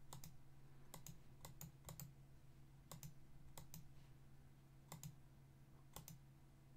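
Quiet computer mouse clicks: about nine quick press-and-release ticks at irregular intervals, over a faint steady low hum.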